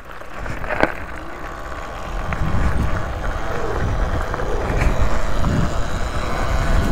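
A Talaria Sting R MX4 electric dirt bike riding off along a dirt trail. The rumble of wind and rolling tyres grows steadily louder over the first few seconds as it picks up speed.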